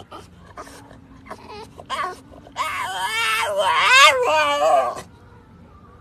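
French bulldog making its squeaky, high-pitched whining noise of excitement. A brief squeak comes about two seconds in, then one long squeal whose pitch wavers up and down for about two and a half seconds.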